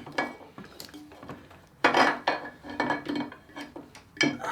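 Metal parts and tools clinking and clattering as a motorbike steering head is taken apart, in a few sharp bursts, the biggest about two seconds in and near the end.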